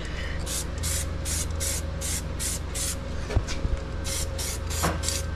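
Paint being sprayed onto fresh welds in short, quick hissing bursts, about three a second, with a pause in the middle, as a temporary coat against rust.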